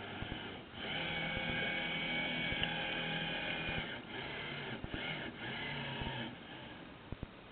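Electric drive motor of a radio-controlled model submarine whining steadily, heard from a camera mounted on its deck, with small clicks and knocks. The whine breaks off briefly a few times and drops away about six seconds in.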